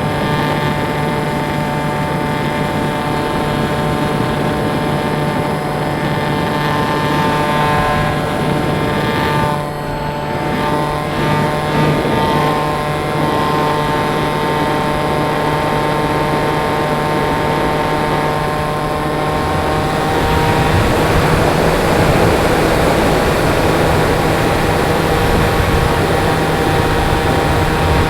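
Electric motor and pusher propeller of an RC glider whining steadily, with wind rushing past. About twenty seconds in, the whine steps slightly higher and the wind noise grows.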